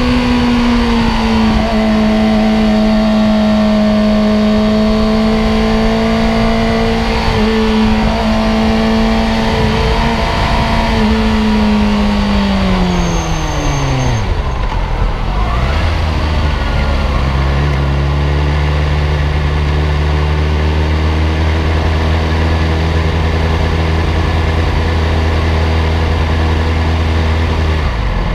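Sport motorcycle engine heard onboard over wind noise, running at steady revs at first. About twelve seconds in, the engine note drops away steeply as the bike slows, then settles into a low, steady note at low revs as it rolls slowly toward the pits.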